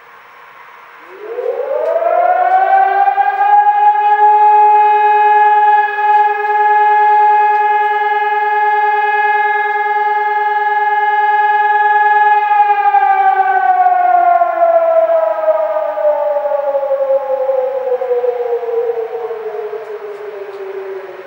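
Civil defence siren being tested: it winds up in pitch about a second in, holds a steady tone for about nine seconds, then slowly winds down, falling in pitch.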